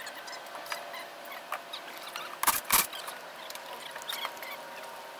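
Hand work on a wooden screen-room frame: scattered small clicks and squeaks, with two sharp knocks in quick succession about two and a half seconds in.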